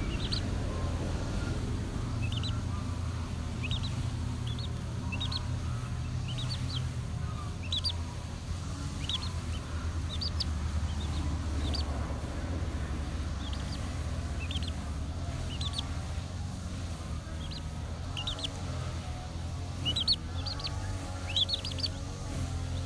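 Young chicks peeping: short, high, rising cheeps, about one a second, with a quick cluster about twenty seconds in, over a low steady hum.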